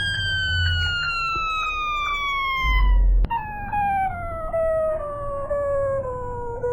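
Electronic keypad lock beep, slowed and pitch-shifted into one long tone that slides steadily downward, with faint regular ticks. A low thump ending in a sharp click comes about three seconds in.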